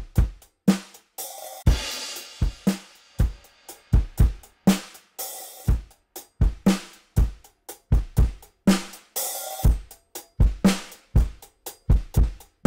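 Recorded drum kit playing a steady groove of kick drum, snare and hi-hat with cymbal crashes, the longest about two seconds in, heard as a drum bus run through a WesAudio Beta76 1176-style compressor.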